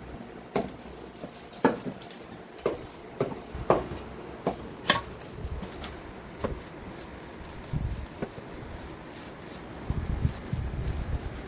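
Irregular sharp knocks and scraping from hand work on a hard surface: about a dozen knocks in the first five seconds, fewer after that, and low rumbling near the end.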